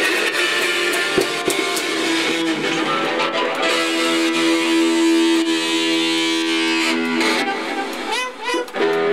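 Electric guitar strummed through distortion, then a chord held ringing for a few seconds and cut off about seven seconds in, followed by a few quieter, wavering notes.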